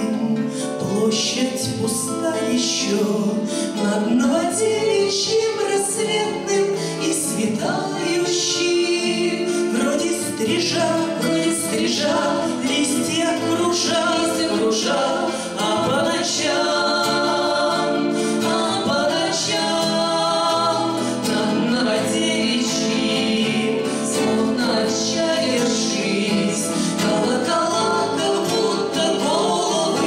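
Two women singing a Russian bard song as a duet, accompanied by their own two acoustic guitars.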